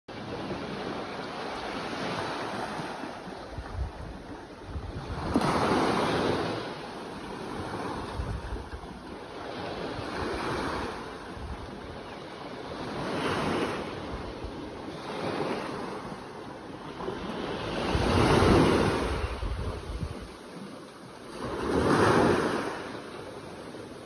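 Small sea waves washing onto a sandy beach: a steady wash of surf with a louder surge every four seconds or so, each swelling up and falling away, the two biggest near the end.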